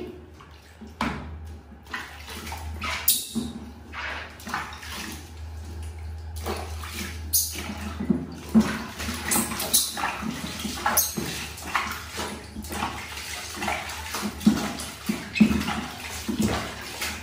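Water splashing and sloshing in a plastic baby tub as a baby monkey is dipped and washed by hand, in many short irregular splashes.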